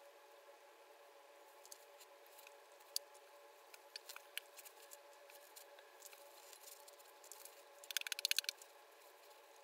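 Faint scattered clicks over a steady low hum, with a quick rattle of a dozen or so sharp clicks about eight seconds in.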